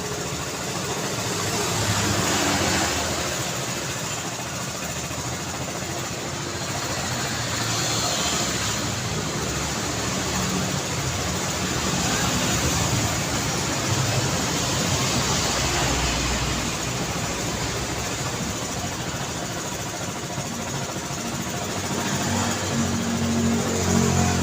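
City street traffic: a steady wash of cars and engines, swelling several times as vehicles pass close by, with a low engine hum underneath.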